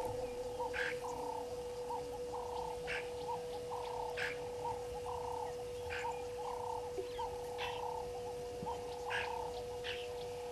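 Frogs calling in a chorus: quick repeated croaks, with sharper, higher calls about every second or so. A steady hum runs underneath.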